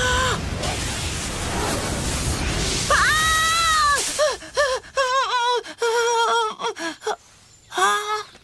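A broad rustling rumble, then high-pitched cries of alarm from two children's voices: one long cry about three seconds in, followed by a run of short yelps.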